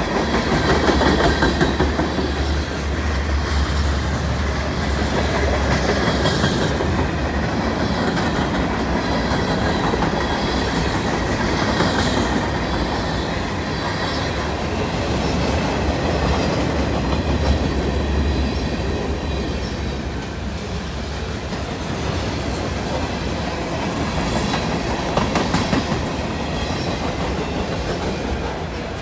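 Freight cars of a CN freight train rolling steadily past on steel wheels, with the continuous clatter of wheels over the rails.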